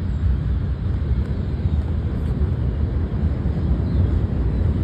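CSX freight train rolling past, a steady low rumble.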